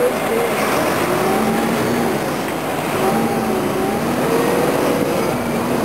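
Street traffic and a bus engine heard from the open upper deck of a moving tour bus: a steady rumble and rush of noise, with a faint engine hum that rises and falls a little in pitch.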